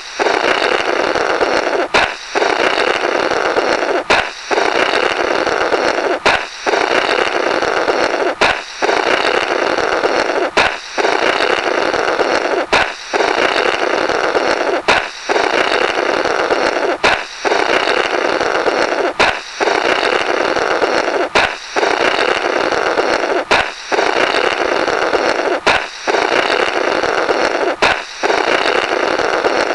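Comic balloon-break sound effect, looped: a sharp balloon pop, then about two seconds of a buzzy, raspberry-like 'blorrrt' of air blown through the burst rubber. It repeats about every two seconds.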